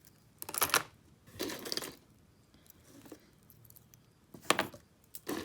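Costume jewelry clinking and jangling as pieces are picked up and sorted by hand, in a few short bursts of rattles and clicks.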